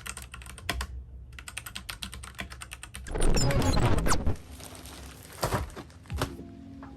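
Fast typing on a Royal Kludge RK71 mechanical keyboard with red linear switches: a dense run of key clicks. About three seconds in, a louder rushing noise lasts about a second, then the keystrokes thin out. Music starts near the end.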